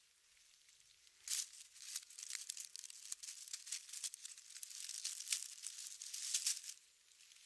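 Close, crisp rustling and crackling of dry fallen leaves and plant stems as a hand picks wild violets from the leaf litter. It starts about a second in as a quick run of snaps and crinkles and dies away near the end.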